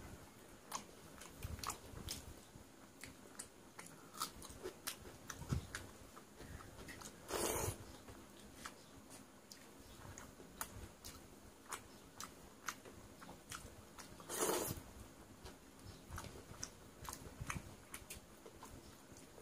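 Close-up eating sounds of a man eating watery fermented rice (panta bhat) by hand: many small wet mouth clicks and smacks of chewing, with fingers squishing through the wet rice. Two louder half-second hissing sounds come about seven seconds apart.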